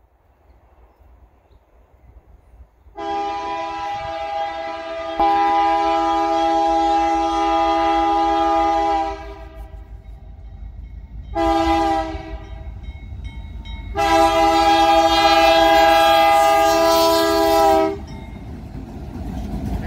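BNSF freight locomotive's air horn sounding as the train approaches: a long blast that grows louder partway through, a short blast, then another long blast, the pattern of a grade-crossing signal. A low rumble from the train builds underneath toward the end.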